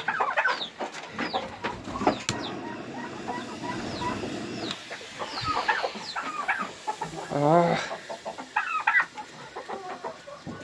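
Domestic chickens clucking and calling in a coop, with short falling squawks scattered throughout and one louder call about seven seconds in. A steady hiss runs through the first few seconds.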